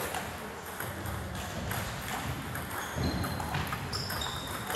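Table tennis balls clicking off bats and tables in quick, irregular succession, several hits leaving a short high ping.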